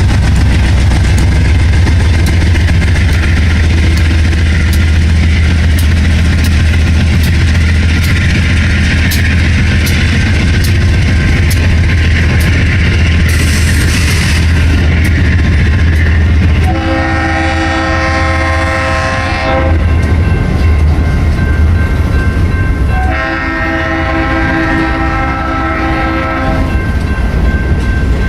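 Diesel freight train rumbling along with a steady run of wheel clicks over the rail joints. Then the locomotive's multi-note air horn sounds two long blasts and starts a third near the end.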